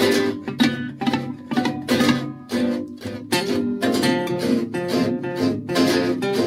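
Background music: a plucked string instrument played at a quick rhythm, with sharp, closely spaced notes and chords.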